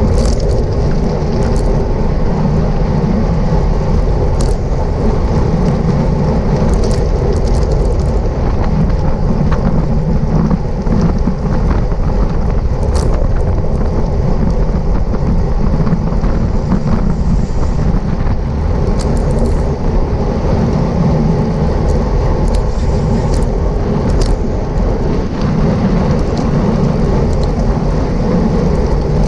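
Wind rushing over the microphone of a racing bicycle at speed, a loud, steady low rumble, with road noise and a few brief sharp clicks and rattles.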